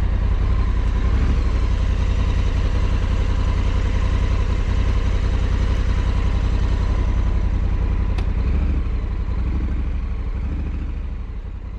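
2020 Honda Africa Twin CRF1100L's parallel-twin engine running steadily at low revs while the bike rolls at walking pace, with a single short click about eight seconds in. The sound fades out near the end.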